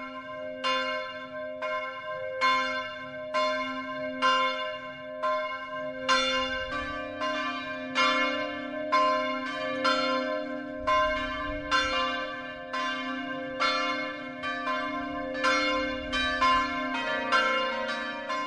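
A peal of bells, struck at an even pace of about one stroke a second over a held low hum, with the strokes coming closer together after about six seconds.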